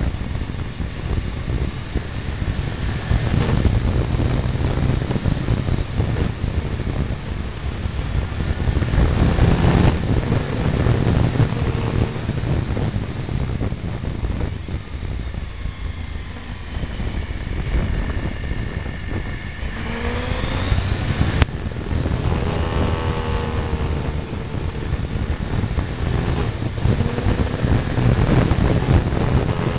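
Triumph Tiger 955i three-cylinder motorcycle engine running on the road under heavy wind rush on the mirror-mounted microphone. About two-thirds of the way through, the engine note rises as the bike accelerates.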